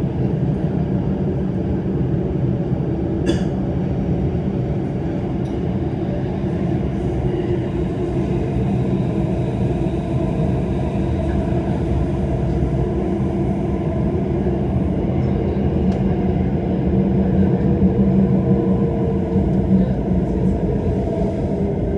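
Bombardier C951 Downtown Line metro train running through a tunnel: a steady rumble of wheels and running gear with traction-motor tones, heard from on board. There is a brief sharp click about three seconds in, the rumble swells around the three-quarter mark, and the motor tones begin to fall near the end as the train slows for the station.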